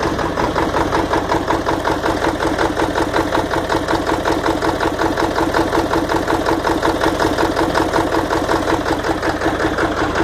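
1997 Ford F-250's 7.3-litre Power Stroke V8 turbo-diesel idling roughly after a hard start, a steady uneven firing; the owner guesses it is running on only six cylinders.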